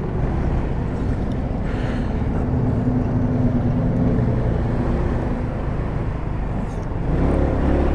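GY6 scooter's four-stroke single-cylinder engine running steadily while riding, a constant drone with road noise.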